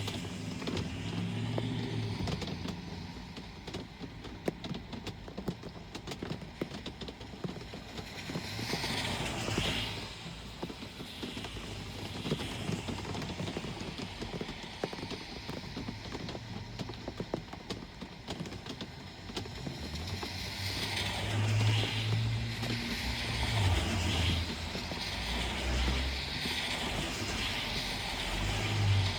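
Rain falling with traffic on a wet street: a steady wash of drops with many fine ticks, and vehicles passing with tyres hissing on the wet road and engines running low, once about a third of the way in and several times in the last third.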